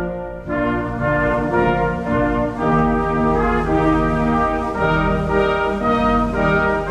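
Brass band music playing slow, sustained chords, with a brief break in the phrase about half a second in.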